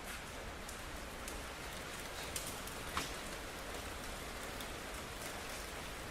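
Steady rain falling on hard surfaces, a constant hiss with scattered individual drops ticking, the sharpest about three seconds in.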